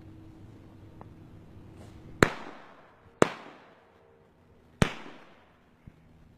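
Three sharp firecracker bangs, the second about a second after the first and the third about a second and a half later, each trailing off in a fading echo.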